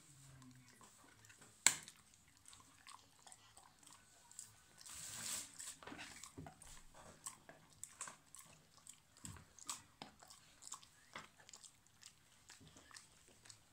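A dog gnawing on a hard chew, with irregular crunching and clicking bites, and one sharp click about a second and a half in.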